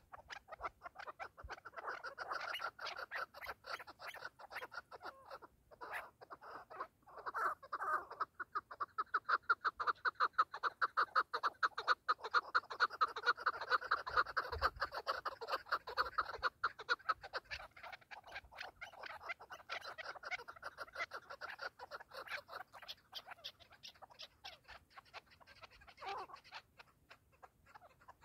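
Caged chukar partridges calling: a long, fast run of short clucking notes, several a second, that swells about eight seconds in and eases off after about seventeen seconds.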